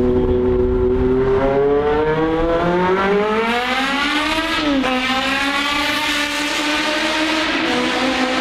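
Honda CBX750's carbureted, air-cooled inline four-cylinder engine revving hard under acceleration. The note climbs for a few seconds, drops sharply at a gear change about five seconds in, then holds at high revs.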